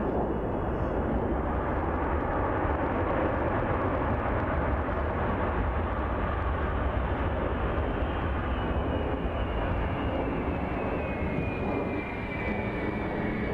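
Boeing C-17 Globemaster III's four turbofan jet engines running loud and steady as the aircraft moves along the ground. A whine comes in about eight seconds in and falls slowly in pitch.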